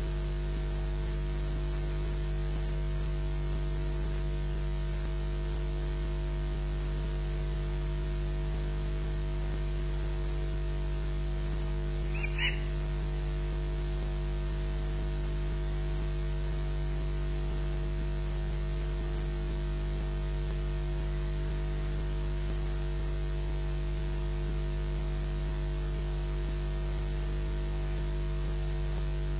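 Steady electrical mains hum and static hiss from the nest camera's audio feed, with one short high chirp about halfway through.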